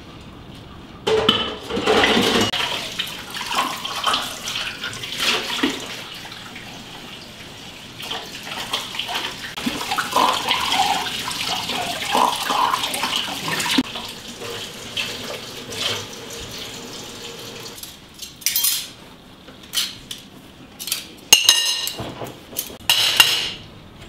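Kitchen tap running into a stainless-steel sink while dishes and a glass are washed, with clinks of crockery and cutlery. In the second half the water stops and there are a few short, sharp clatters of dishes and cutlery being handled.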